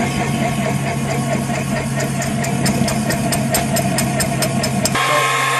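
The starting fan of a wood gas generator running with a steady hum, drawing air through the lit wood to get the generator going. Sharp clicks come thick and fast in the middle, and the sound changes abruptly near the end.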